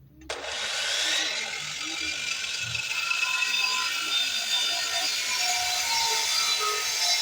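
Electric power tool switched on about a third of a second in, then running steadily as it mills a piece of scrap timber for a table leg.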